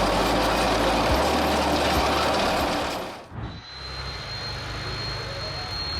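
Tesmec chainsaw trencher at work: engine and cutting chain grinding through the ground in a loud, even noise with a low hum. The noise cuts off suddenly about halfway, and quieter machine noise with a steady high whine follows.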